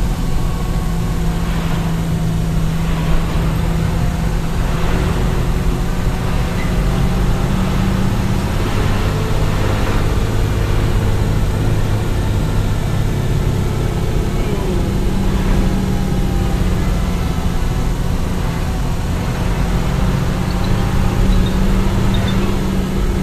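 Steady drone of a coach's engine and road noise, heard inside the cabin at highway speed.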